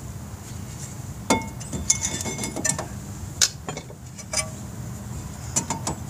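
Brake caliper bracket and pads clinking against each other and against the front rotor and knuckle as they are handled and fitted. Scattered light metal clicks and taps, some ringing briefly, starting about a second in and bunching around two seconds and again near the end.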